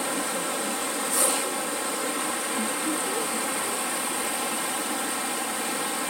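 Steady rushing of a small rocky creek, an even hiss of water over stones, with one brief louder noise about a second in.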